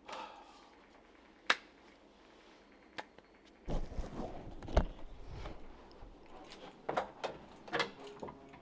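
A few sharp clicks and knocks, with a stretch of rustling and low thudding noise about four seconds in.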